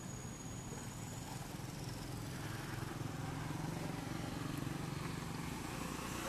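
A motor vehicle's engine running steadily with a low hum, growing louder a little before halfway through.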